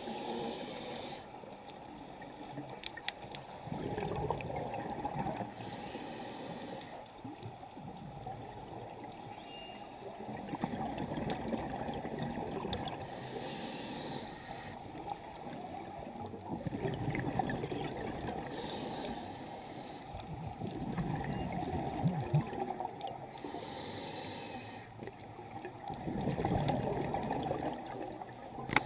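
Scuba diver breathing underwater through a regulator: a short hiss on each inhale, then a gurgling rush of exhaled bubbles, repeating every few seconds.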